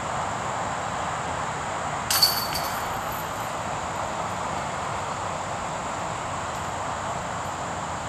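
A disc golf putt hitting the hanging chains of a metal basket about two seconds in: a sharp clink, then about half a second of jingling chains, over steady background noise.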